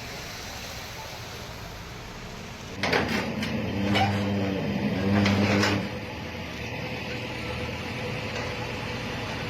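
Heavy construction machinery: a loud low hum that dips and rises in pitch, with several sharp metallic clanks, lasting about three seconds from about three seconds in, over steady site noise.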